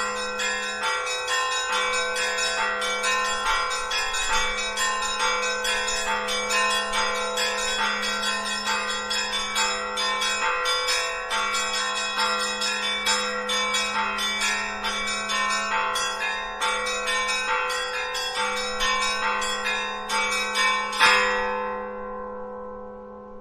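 Church bells ringing in a rapid peal: many bells struck quickly over a steady low hum of deeper bells. Near the end comes one loud stroke that rings away.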